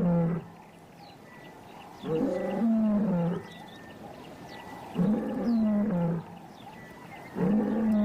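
Male lion roaring: a series of long, deep roars about every two and a half seconds, each dropping in pitch toward its end.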